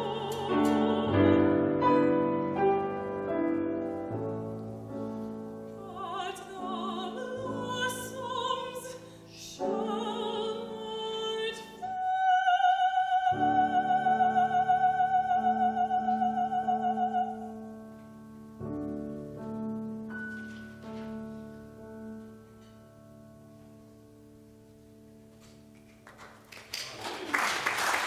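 Operatic singing with grand piano accompaniment. A high voice holds one long note with vibrato, then the piano closes with soft sustained chords that die away. Audience applause breaks out near the end.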